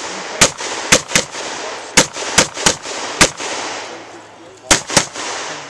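Rifle shots fired in quick strings, about nine in all, mostly in pairs and triples a fraction of a second apart, with a pause of about a second and a half before a last pair near the end.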